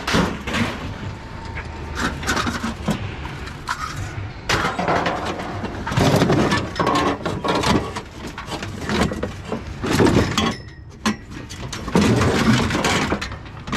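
Scrap metal and junk being handled and tossed onto a pile: a run of clattering, banging impacts, with louder crashes about halfway through and near the end.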